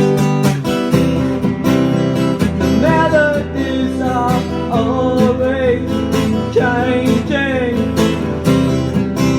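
A singer-songwriter performing live to his own strummed acoustic guitar. Steady chords run throughout, and a singing voice comes in about three seconds in.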